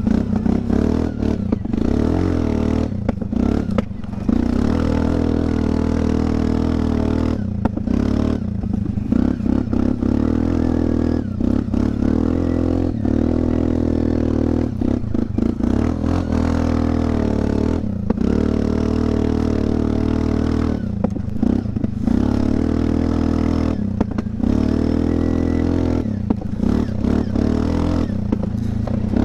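Single-cylinder engine of a Linhai 400S Dragonfly ATV running through an aftermarket fake Akrapovic silencer while the quad is ridden. The exhaust note rises and falls as the throttle is opened and shut many times, with some clatter from the machine over rough ground.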